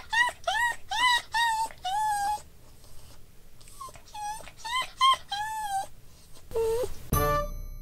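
Toy poodle whining impatiently in short, high whines that rise and fall, several in quick succession, then after a short pause another run. A chiming music jingle comes in near the end.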